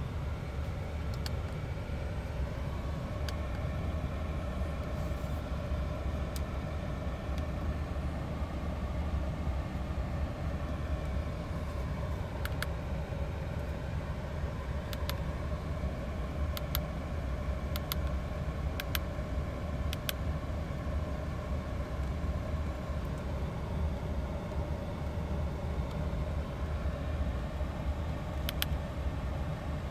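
Steady low vehicle rumble with a few faint steady tones on top, and occasional sharp clicks around the middle and near the end.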